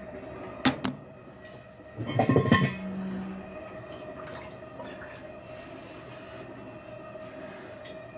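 Stainless steel wash basket of an Admiral top-load washer being worked loose and lifted out of the plastic outer tub: a sharp knock, a loud metallic clatter about two seconds in, then lighter rattling and scraping.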